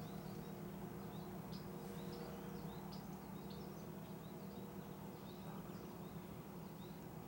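Quiet field-edge ambience: many small birds give short, high chirps scattered throughout, over a steady low hum.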